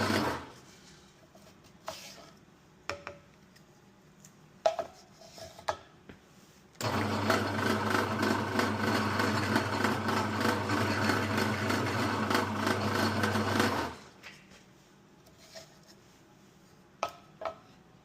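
Pillar drill's electric motor running with a steady hum, then stopping within the first half second. A few light clicks and knocks follow. The drill starts abruptly about seven seconds in, runs steadily for about seven seconds, and cuts off, followed by more light clicks near the end.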